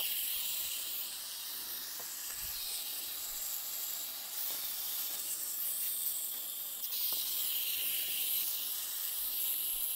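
Small wind-up toy engine's clockwork motor whirring as it runs across a tabletop: a steady, high-pitched whir.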